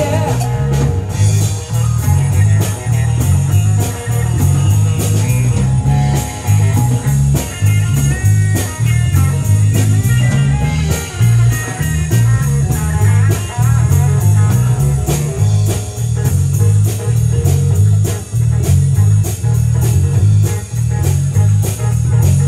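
Live rock band playing an instrumental passage with no vocals: electric guitar notes over bass guitar and drums keeping a steady beat.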